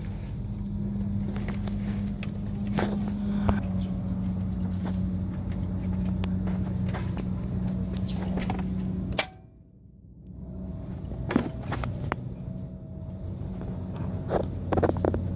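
Nissan CD17 1.7-litre four-cylinder diesel engine sounding steadily, in a car that has trouble starting. It cuts out abruptly about nine seconds in and builds back up a second or so later.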